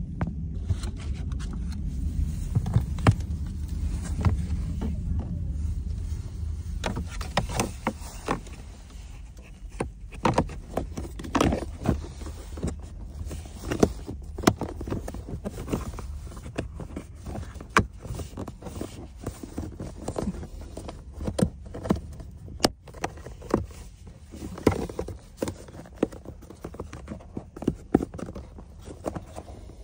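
Irregular plastic clicks, taps and scrapes of a hand working a plastic trim bracket into place under an Audi's glovebox, over a low rumble during the first six seconds or so.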